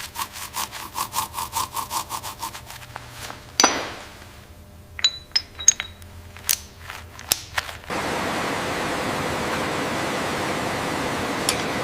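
Hand-tool work on metal: a fast run of rhythmic scraping strokes, about five a second, then a loud clank and several sharp clicks. From about two-thirds of the way in, a steady rushing hiss takes over.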